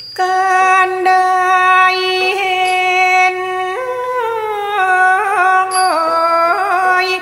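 Thai classical singing: one voice holding long notes that slide between pitches and waver in ornamented turns, in the style sung with a piphat ensemble. A high ringing stroke sounds about two-thirds of the way through.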